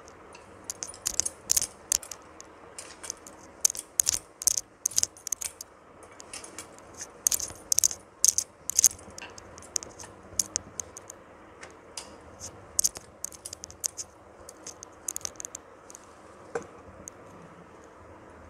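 Dough being rolled out with a wooden rolling pin on a metal rolling board, with bangles on the wrists clinking and jingling in quick bright bursts as the pin goes back and forth. There is a short pause partway through and a single knock near the end.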